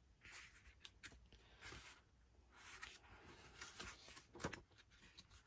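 Faint rustling of paper and a few soft clicks as the pages of an old hardback book are turned, in a few short bouts.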